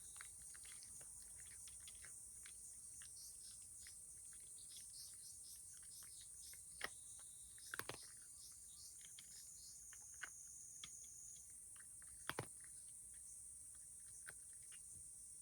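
Faint, irregular clicks of a cat eating from a plate, the loudest about 7, 8, 10 and 12 seconds in, over a steady high-pitched hiss.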